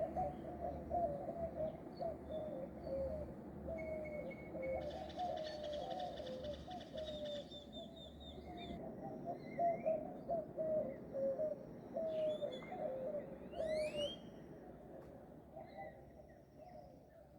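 Dawn chorus of tropical birds: a continuous run of quick, low, cooing notes, with fainter high chirps and whistles above it, a buzzy trill, and a rising whistle about three-quarters of the way through.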